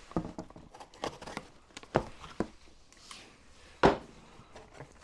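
Rustling of packaging and bagged small kit parts being handled, with a few sharp knocks. The loudest knock comes near the end.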